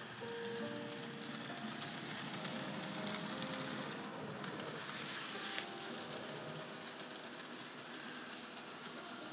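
N scale model trains running on the layout track: a steady rushing rattle of small metal wheels and motors, with a couple of sharp clicks about three and five and a half seconds in.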